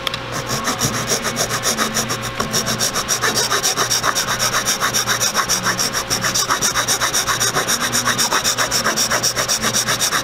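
Hand file rasping in quick back-and-forth strokes, about six a second, on the tabs of a stock headlight reflector. The tabs are being ground down so the H1 projector makes a snug fit.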